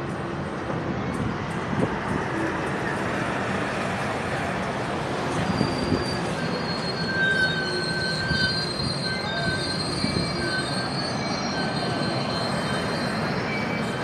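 Union Pacific streamlined passenger cars rolling past, a steady rumble of wheels on rail. From about five seconds in, high-pitched squeals come and go over the rumble.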